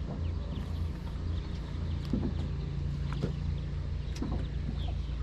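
Boat motor humming steadily at a low, even pitch, with a few soft knocks about a second apart and faint short high chirps over it.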